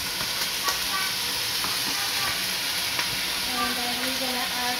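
Raw chicken feet frying in hot oil in an enameled cast-iron pot: a steady, dense sizzle, with a few light clicks as the pieces settle.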